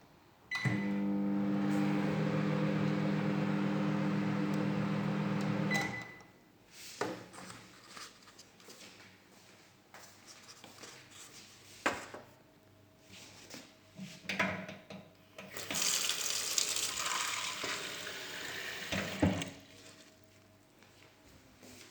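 Sharp microwave oven running for about five seconds with a steady hum and fan noise, a short beep as it starts and as it stops: the oven now starts after its no-start repair. Scattered clicks and knocks follow, then a few seconds of water running from a tap.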